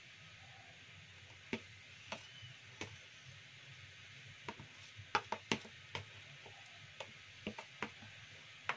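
Metal spoon stirring a spice paste in a plastic bowl, clicking and knocking against the bowl about a dozen times at irregular intervals, most thickly around the middle.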